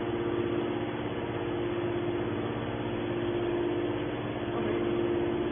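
Hydraulic metal baler running steadily: an unchanging machine hum with a strong low-mid drone.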